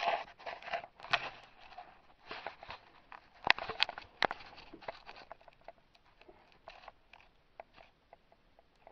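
Handling noise in an engine bay: rustling and scattered sharp clicks and knocks of gloved hands, tools and the camera being moved about. A cluster of sharp clicks comes about three and a half to four and a half seconds in, then only faint ticks.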